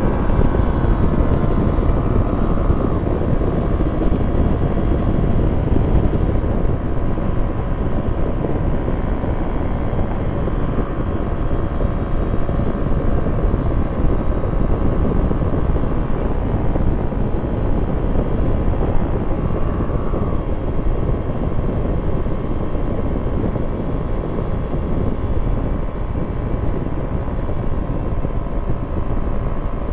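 Quad City Challenger II ultralight's engine and propeller running steadily in level flight, heard from inside the cockpit as a loud, even drone.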